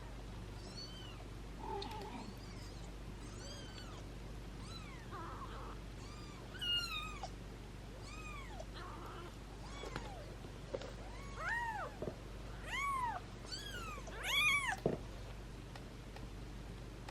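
Newborn kittens mewing: about a dozen short, high, thin mews, each rising and then falling in pitch, coming louder and closer together toward the end.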